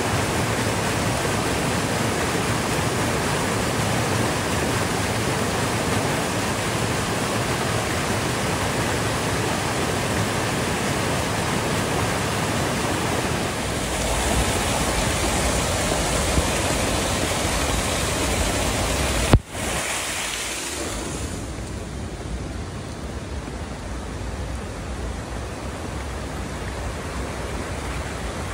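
Rushing water, a steady even rush that fills out about fourteen seconds in. A sharp click follows at about nineteen seconds, after which the rush is softer and duller.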